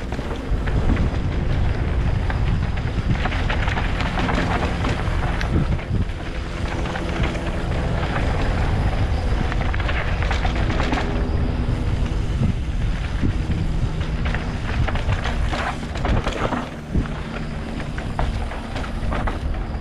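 Mountain bike riding a dirt trail: steady wind buffeting on the camera microphone over the rumble of knobby tyres, with frequent short rattles and knocks as the bike goes over bumps.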